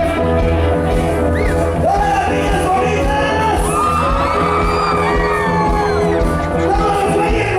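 Loud Latin music with a singing voice over a heavy, steady bass, with shouts from a crowd over it.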